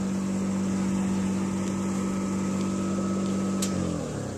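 Car engine idling steadily with a faint whine above it, then shut off near the end, its hum falling in pitch as it winds down and stops.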